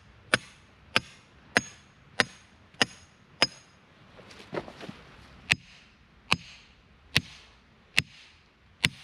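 The back of an axe hammering a short length of #4 rebar into the ground: eleven sharp metal-on-metal strikes. The first six ring and come about every 0.6 s, then after a short pause the blows come about every 0.8 s.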